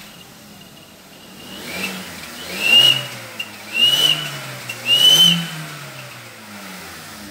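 Car engine revved three times, with an exhaust-mounted turbo whistle giving a high whistle that rises in pitch with each rev and sinks back as the engine drops to idle, where the whistle stays faintly audible.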